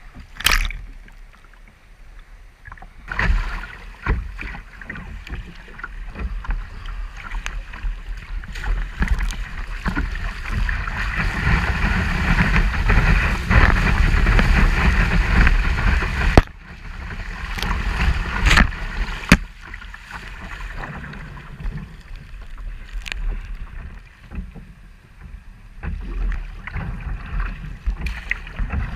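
Lake surf rushing and splashing around a kayak as it rides waves, with wind buffeting the deck-mounted camera's microphone as a low rumble. The rush builds to a loud surge that cuts off suddenly about halfway through, followed by a couple of sharp slaps and a quieter wash of water.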